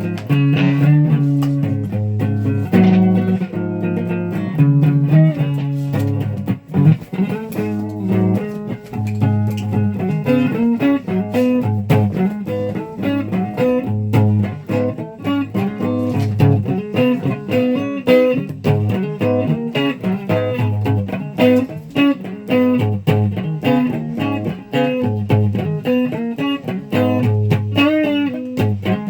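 Guitar being played: a continuous run of plucked single notes, changing several times a second.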